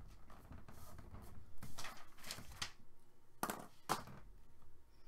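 Short knocks and rustles of handling, a cluster about two seconds in and two more near three and a half to four seconds, over a low background hum.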